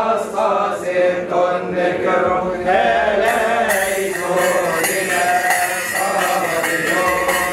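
Men chanting a Coptic liturgical hymn in long, drawn-out melodic lines. A bright, regular high striking joins about three seconds in.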